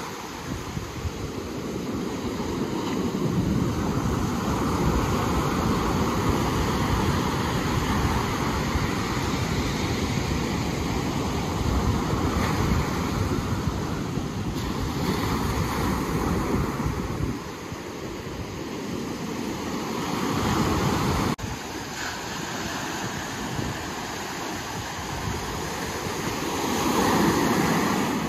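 Ocean surf: waves washing in and breaking, swelling and easing every few seconds, with some wind on the microphone.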